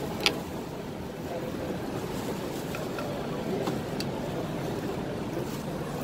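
Steady exhibition-hall din with a faint murmur of voices. About a quarter second in comes one sharp click, and a few lighter clicks follow, as aluminium mold parts of a screen-laminating machine are handled and set in place.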